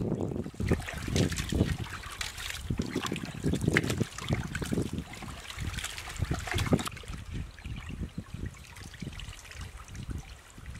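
Water pouring into an aluminium pot of raw chicken pieces, then hands swishing and rubbing the chicken in the water, with irregular sloshing and splashing that grows lighter after about seven seconds.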